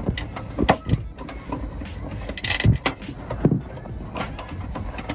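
Plastic clicks, knocks and a short scrape as a hand works a red 500 GPH livewell aerator pump cartridge into its housing. The noises come irregularly, a few sharp knocks with a brief rasping scrape about halfway through.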